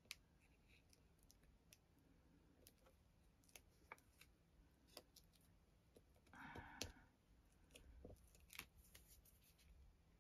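Near silence with faint, scattered light clicks and a brief soft rustle about six and a half seconds in, from fingers handling and placing small paper embellishments on a journal page.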